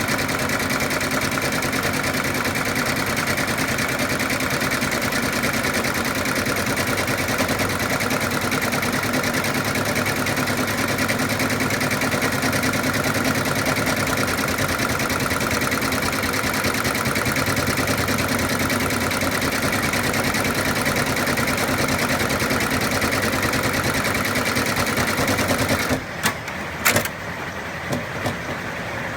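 Embroidery machine stitching at a steady, rapid rate, then stopping near the end, followed by a couple of sharp clicks.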